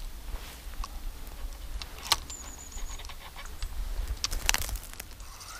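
A few sharp clicks and knocks from handling a fishing rod and spinning reel, the loudest about two seconds in and again around four and a half seconds, over a steady low rumble of wind on the microphone. A brief thin high chirp sounds between the first two clicks.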